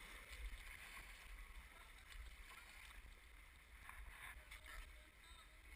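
Faint, quiet water sounds around a kayak on a river, with a few soft paddle splashes about four seconds in and a low rumble underneath.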